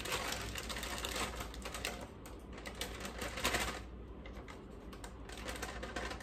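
Plastic microwave steam bag of frozen vegetables crinkling in rapid clicky rustles as it is shaken and emptied into a bowl. The crinkling is densest in the first two seconds and flares again about three and a half seconds in.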